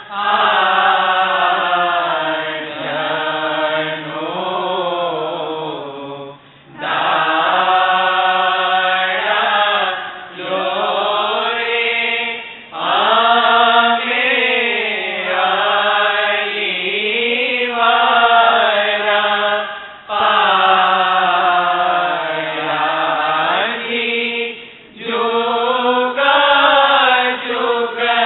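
A voice chanting a devotional prayer in long, gently gliding held phrases of several seconds each, with short breaks for breath between them.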